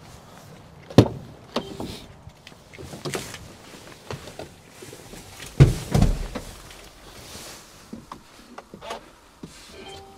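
Mercedes Sprinter van's front passenger door being opened, with a sharp click about a second in, then two heavy low thuds about halfway through and rustling and small knocks as someone climbs into the cab.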